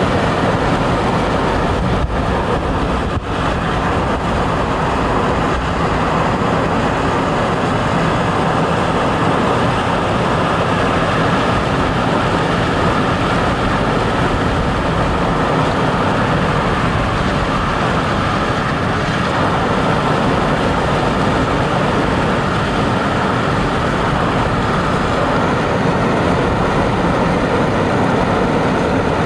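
Steady running noise of a moving vehicle heard from inside it: a constant, even rumble and hiss that holds without a break, with one brief dip about three seconds in.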